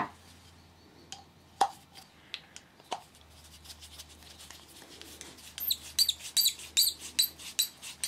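Hand screwdriver driving Torx screws into a washing machine drain pump's plastic housing. A few single knocks come first, then from about six seconds in a quick run of high squeaks and clicks as a screw turns into the plastic.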